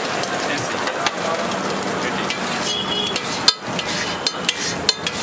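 Egg omelette sizzling on a flat griddle while a metal spatula chops and scrapes through it, with sharp clinks of the blade striking the griddle, once about a second in and several in quick succession near the end.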